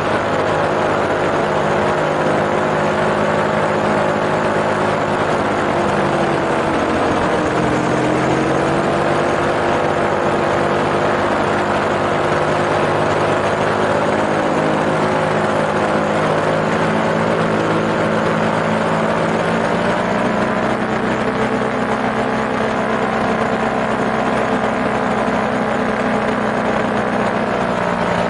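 Small propeller engine running steadily in flight, with wind noise. Its pitch dips briefly about seven seconds in and rises again about twenty seconds in as the throttle changes.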